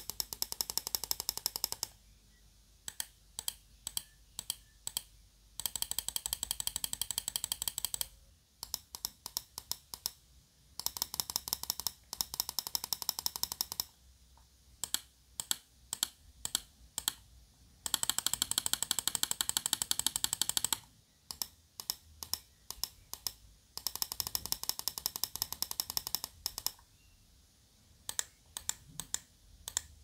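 Gaming mouse microswitches clicking, a Kailh GM switch in the left button against an Asus ROG switch in the right. Runs of very fast repeated clicks alternate about every three seconds with slower, separate single clicks.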